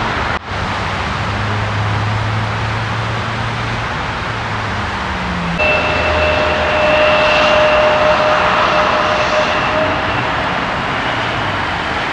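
Jet airliner engines passing low overhead: a steady rushing roar, broken briefly near the start, with a high steady whine that cuts in suddenly about halfway as the roar grows louder.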